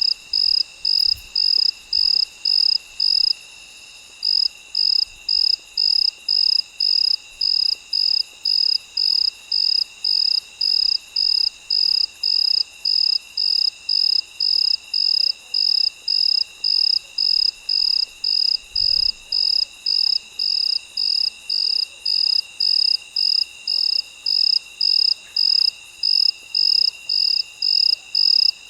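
Cricket chirping in a steady rhythm, about two high chirps a second, with a brief pause about three seconds in, over a steady high trill of other insects.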